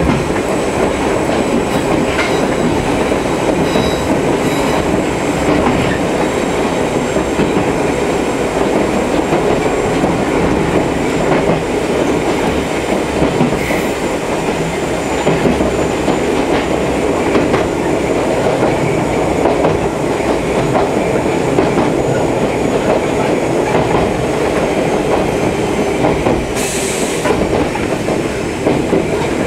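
Ichibata Electric Railway 2100-series electric train heard from inside the car while running: a steady rumble of wheels on rails and running gear. A short high hiss comes in near the end.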